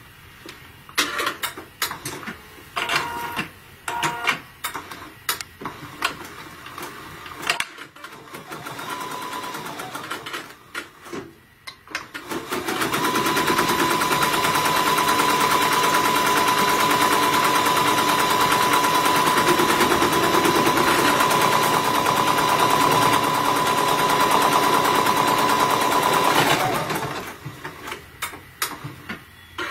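Bernina computerized embroidery machine stitching an applique placement line. After about a dozen seconds of scattered clicks and knocks, it runs steadily at speed for about fourteen seconds with a constant high whine, then stops a few seconds before the end.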